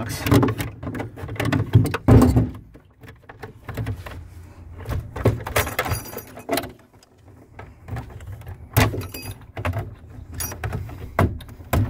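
Irregular metallic clicks, clinks and knocks of hand work on the wire terminals inside an RV automatic transfer switch box, as terminal nuts and wires are handled with gloved hands.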